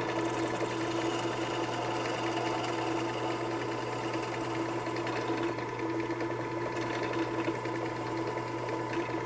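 Small benchtop drill press running steadily with a constant motor whine, drilling out the rivets of a lawn tractor starter solenoid.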